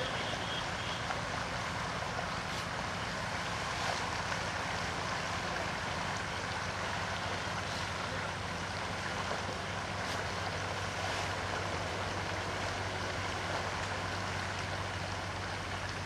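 Steady outdoor background noise, with a few faint short crisp strokes of grass being cut and pulled by hand with a sickle.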